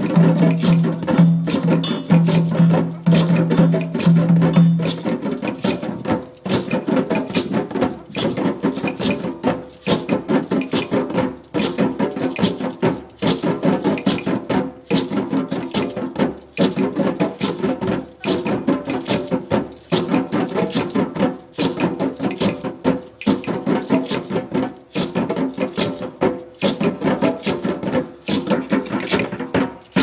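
Djembe drumming: fast, continuous hand-drum strokes in a rhythm that repeats in a cycle of under two seconds. For about the first five seconds a deep humming tone sounds under the strokes, then stops.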